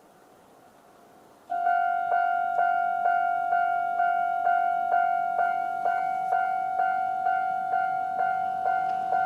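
Japanese railway level crossing's electronic warning bell starting up about a second and a half in, then dinging steadily about twice a second. The crossing is sounding its normal warning for an approaching train.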